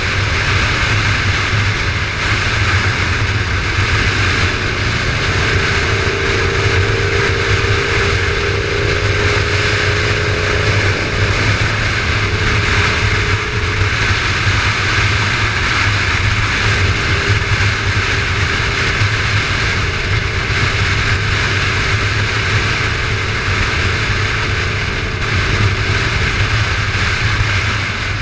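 Motorcycle cruising at steady motorway speed: a steady engine drone under a loud, even rush of wind noise.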